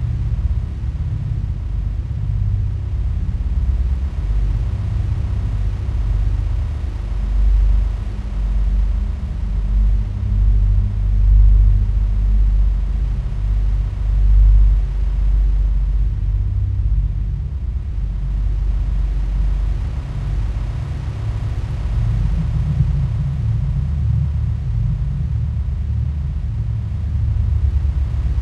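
Sci-fi UFO hover sound effect: a deep, steady rumbling drone with faint sustained tones above it, swelling louder a few times around the middle.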